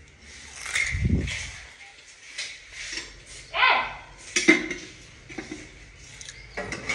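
Dishes and metal utensils clinking and knocking in short, scattered strikes, with a few brief bits of voice.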